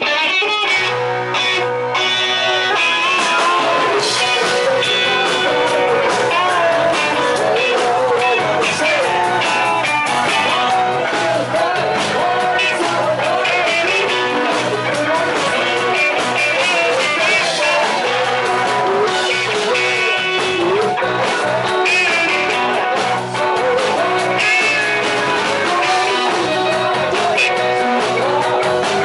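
Rock and roll music: a band with electric guitar and a regular beat, with a lead vocal singing over it, starting abruptly and playing steadily throughout.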